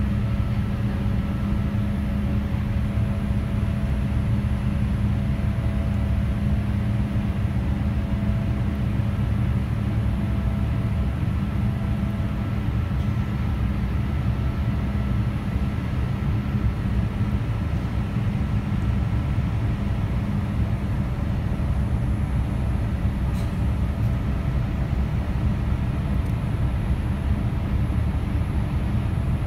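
Cabin noise of a Boeing 787-8 in flight: its GE GEnx-1B turbofans and the airflow past the fuselage, heard from inside as a steady low rumble with a constant hum.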